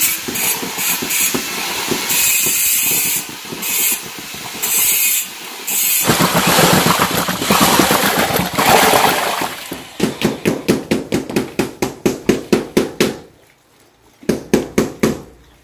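Handheld electric paddle mixer running in a plastic bucket, churning wet cement mortar; its sound swells and eases over the first few seconds. Later it goes into a fast, even pulsing of about five beats a second, stops, and after about a second runs briefly again.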